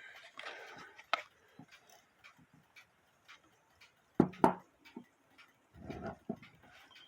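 An old mechanical alarm clock movement ticking steadily, with a few louder knocks and clicks over it about a second in, around four and a half seconds in, and again near six seconds.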